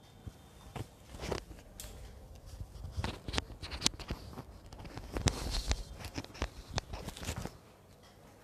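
Irregular clicks, knocks and rustling of handling noise, heaviest in the middle of the stretch and dying down near the end.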